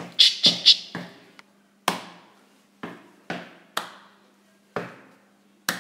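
Percussive beat made with hands and shoes: sharp slaps and taps, each dying away quickly. There is a quick run of three loud hits near the start, then single hits spaced about half a second to a second apart.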